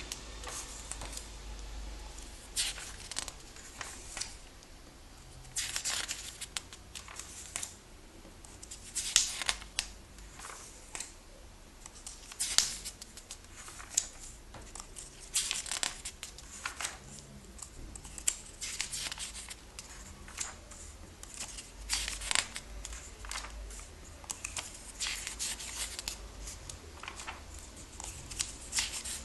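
Pages of a comic book being turned by hand, a short paper rustle and flap every second or two.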